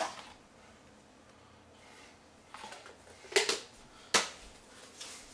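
A few sharp clicks and knocks from objects being handled, the loudest two about a second apart past the middle, with faint rustling before them.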